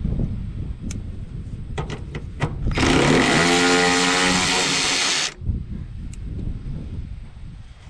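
A handheld power tool runs for about two and a half seconds, rising in pitch as it spins up, backing out a bolt on the loader's belt shroud.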